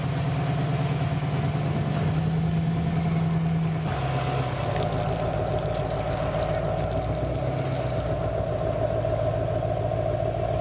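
Tow vehicle's engine pulling a boat on its trailer up out of the water, running steadily with a shift in pitch about four seconds in.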